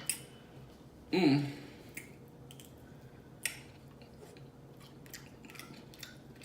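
Close-up mouth sounds of someone eating a saucy seafood boil: chewing and lip-smacking with scattered short wet clicks. About a second in there is one short, louder voiced sound from the eater.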